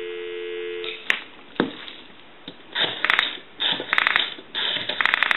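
Telephone dial tone, two steady low tones held together, runs for about a second, then cuts off with a click. From about three seconds in, a Western Electric 202's rotary dial is wound and let run back several times, each return a short burst of rapid clicking as the dial pulses out a digit.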